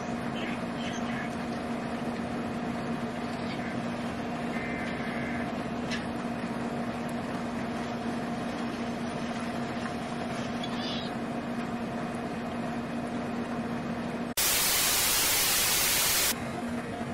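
A loud burst of TV-static white noise lasting about two seconds near the end, cutting in and out abruptly, used as a video transition. Before it, a steady background hiss with a low hum.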